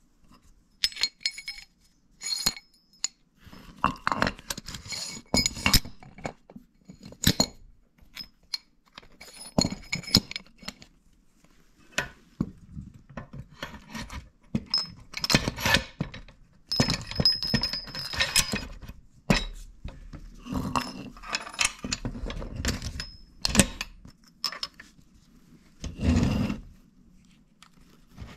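Steel washers and a steel pipe axle clinking and knocking irregularly as caster wheels and washers are handled and slid onto the axle by hand; many of the clinks ring briefly.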